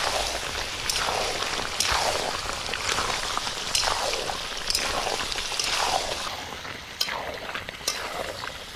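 Pork curry sizzling in a pan as the meat and masala are fried down (kosha) with yogurt. A spatula scrapes and knocks against the pan about once a second.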